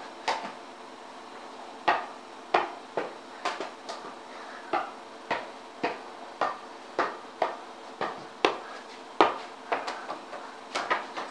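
A ball being kept up in kick-ups: a run of sharp thuds as it is struck, unevenly spaced at about two a second, each with a short echo off the walls.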